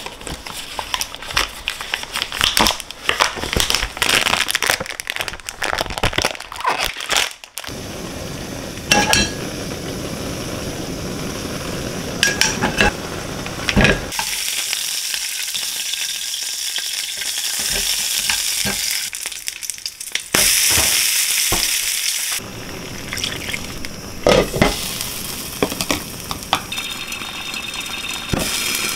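Food frying in a pan with a steady sizzle, louder in the middle stretch, while a utensil stirs it and clicks and knocks against the pan, most often in the first several seconds and again near the end.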